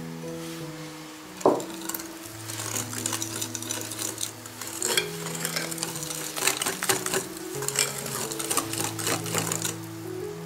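Cake batter being gently stirred in a bowl as flour is worked in, a utensil scraping and clicking against the bowl, with one louder knock about a second and a half in. Soft background music with long held notes plays underneath.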